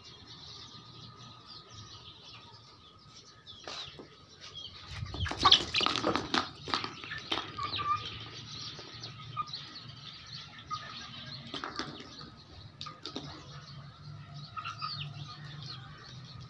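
Chickens feeding from a steel bowl of crumbled feed on concrete: a busy flurry of pecking clicks and wing flaps from about four to eight seconds in, then scattered pecks.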